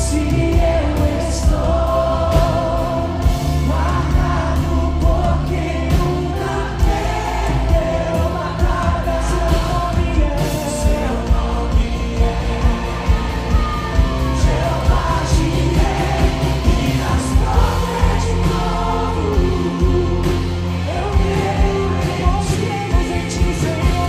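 Live Christian worship band: a male lead singer with backing vocalists singing over electric guitar, bass and drums, with a steady beat.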